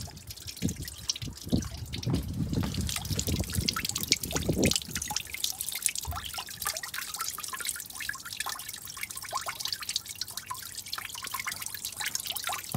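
Coolant trickling and dripping out of the water pump flange, cracked open from the block of a VW 2.8 V6 engine to drain the cooling system, spattering into a bucket below. There is some low rumble in the first few seconds.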